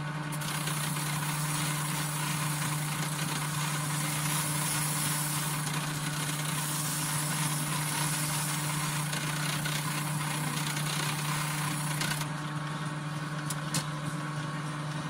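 Electric grinder motor running with a steady hum while a metal part is held against the wheel, a harsh grinding hiss that stops about twelve seconds in as the part is lifted off; the motor keeps running.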